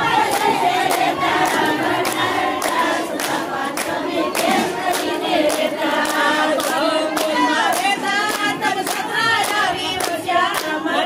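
A group of women singing together, clapping their hands in a steady beat about twice a second.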